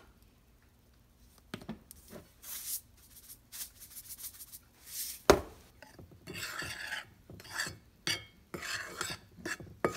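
A metal spoon stirring and scraping through dry seasoned flour in a glass bowl, in short, uneven strokes. There is a sharp knock about five seconds in.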